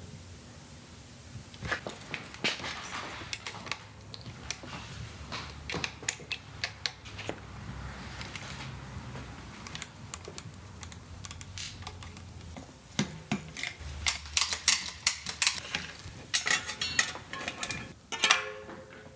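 Irregular quick clicks and metallic clinks of hand tools and small bike parts being handled during a mountain bike build, getting busier and louder in the last few seconds.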